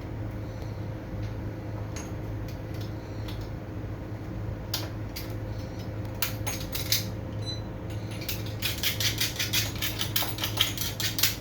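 Small metal parts and tools clinking and clicking as they are handled, scattered at first, then a fast run of clicks near the end, over a steady low hum.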